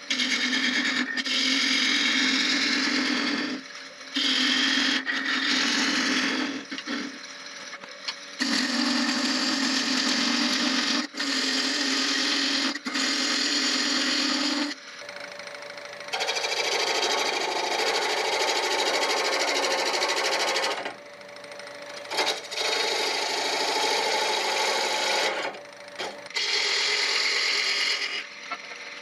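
Sandpaper rubbing against a wooden cocktail smoker blank spinning on a wood lathe, a loud hiss in passes of a few seconds with short breaks between them.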